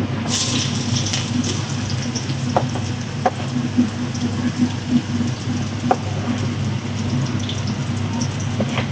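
Chili paste sizzling in hot oil in a frying pan, a steady hiss with scattered crackles, over a steady low hum.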